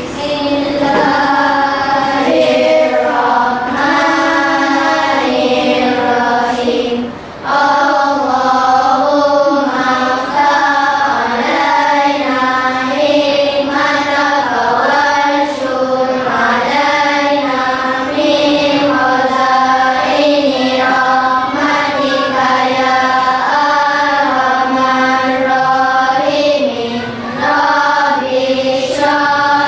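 A class of schoolchildren reciting a doa (Muslim prayer) in unison in a chanted, sing-song cadence, with a short pause for breath about seven seconds in.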